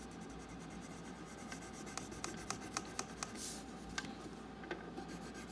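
Colouring tool rubbing on paper as an area of the drawing is coloured in with light brown: a faint, steady run of quick scratchy strokes, with a few sharper ticks in the middle.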